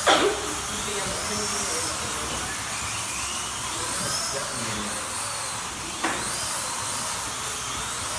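Slot cars' small electric motors whining as they lap the track, the pitch rising and falling every couple of seconds with throttle. Near the start and again about six seconds in, there is a short, loud, quickly falling sweep.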